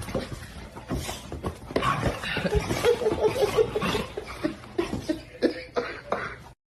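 People laughing in quick repeated pulses, mixed with clicks and knocks, cutting off suddenly near the end.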